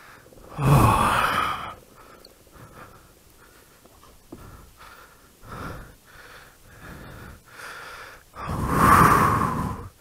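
A dirt-bike rider breathing hard and gasping after a crash: a loud gasp about a second in, fainter panting breaths, then another loud gasp near the end.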